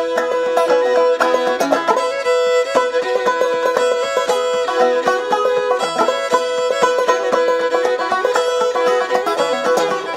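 Background music: an instrumental bluegrass-style passage with fast picked banjo and a held fiddle note.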